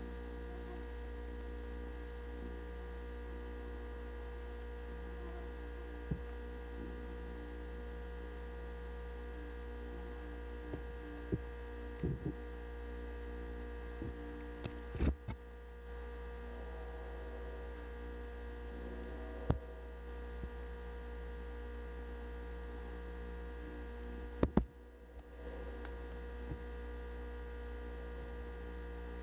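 Steady electrical hum made of several fixed tones over a low drone, broken by a handful of short sharp clicks or knocks at irregular moments.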